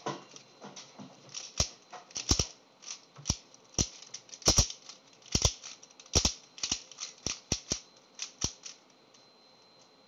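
Plastic layers of a 3x3 puzzle cube being turned by hand, making sharp clicks and clacks at an uneven pace. The clicking stops about nine seconds in.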